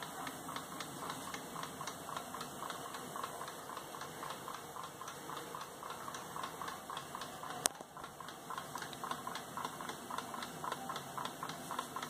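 Roger's pendulum wall clock ticking steadily in an even rhythm, with one sharp click a little past halfway.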